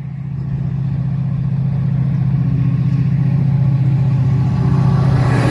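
Class 68 diesel-electric locomotive approaching along the platform, its Caterpillar V16 diesel engine a steady low drone that grows louder as it nears. Near the end, rushing wheel-on-rail noise builds up as it draws level.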